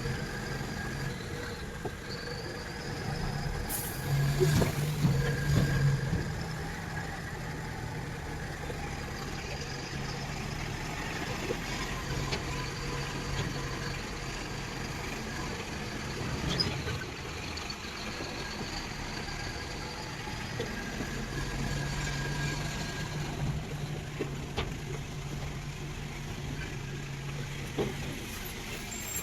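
Excavator's diesel engine and hydraulics working while loading a dump truck, the engine note rising under load twice, near the start and again later for several seconds, over a steady high whine. A few short knocks, the loudest just after the first rise.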